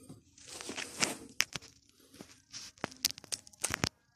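Washing-machine parts being handled and pulled apart by hand: scraping and rustling with a run of sharp clicks and knocks, which come thickest in the last second or so.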